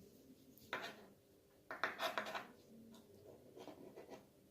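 Scratchy handling sounds as glitter is added to the slime mixture: two short rustling scrapes about a second apart, then a few softer ones.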